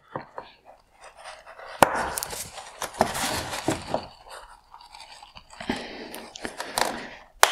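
Plastic headlight parts being worked by hand: the projector mounts being pried and popped off their plastic mounting tabs in the housing, with irregular scraping and crunching and several sharp clicks, the loudest near the end.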